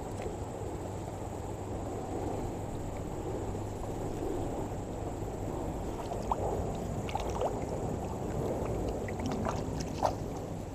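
Shallow creek water running steadily, with a few light clicks and taps in the second half.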